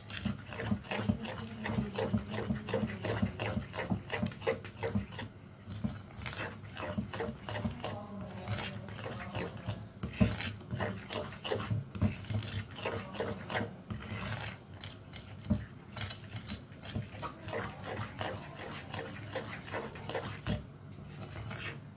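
A utensil stirring and scraping thick Oreo chocolate cake batter around a glass bowl in quick, irregular strokes, with a brief pause near the end.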